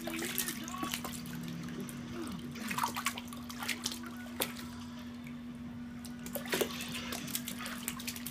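Water splashing and sloshing in a plastic baby bathtub, in small irregular splashes, over a steady low hum.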